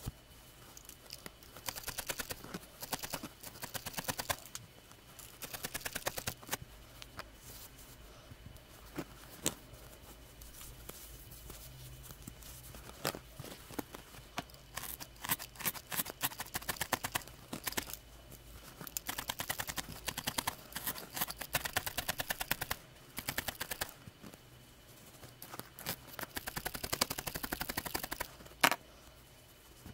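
Felting needle stabbing rapidly into a ball of white wool on a burlap-covered felting pad: quick runs of sharp pokes separated by short pauses, with one louder knock near the end.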